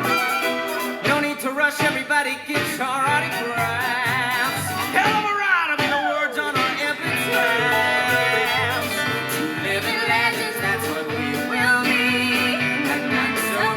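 Musical-theatre song with sung vocals over a band with guitar and a steady beat.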